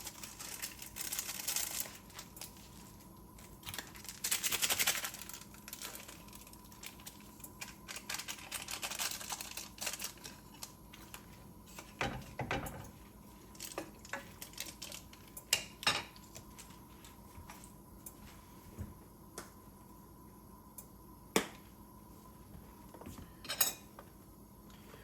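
Rustling of a ramen soup-base packet as its powder is shaken out into the pot, in several bursts, then scattered clicks and taps of utensils against pots and dishes.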